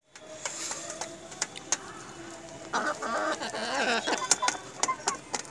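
Chickens pecking pomegranate seeds from a steel pan, their beaks tapping the metal in scattered sharp clicks. About halfway through, a chicken gives a clucking call lasting over a second.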